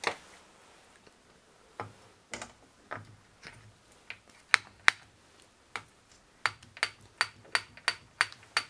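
Sharp metallic clicks as the kick-starter shaft assembly is handled and fitted into the open crankcase of a Yamaha XT600 single-cylinder engine. There are a few scattered clicks, then a regular run of clicks, about three a second, near the end.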